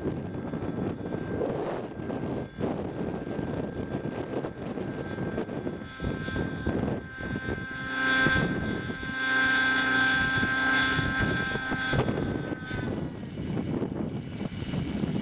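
Radio-controlled model helicopter's engine and rotor running with a steady high whine that grows loud as it comes in low, then stops about thirteen seconds in once it is down. Wind buffets the microphone throughout.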